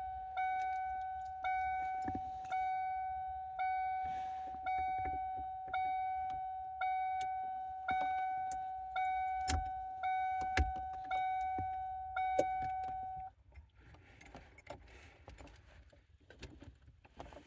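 1992 Ford Mustang's dashboard warning chime, a single pitched ding repeating about once a second. It is the key-in-ignition reminder, sounding while the new ignition lock cylinder goes in with the battery still connected. It cuts off about 13 seconds in, followed by faint clicks of keys and parts being handled.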